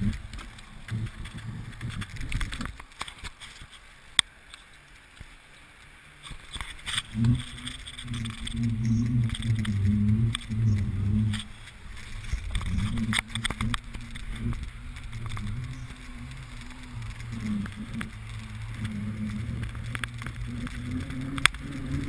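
Mountain bike being ridden over city asphalt, heard from a camera on the bike: tyre and road noise with sharp knocks and rattles. About seven seconds in, a louder low wavering hum joins it.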